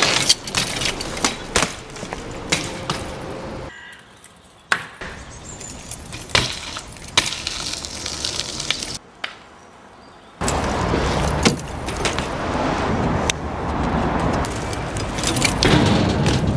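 BMX bikes riding: tyres rolling over pavement and dirt with rattling from the bikes, broken by several sharp knocks of hops and landings, with a couple of quieter stretches.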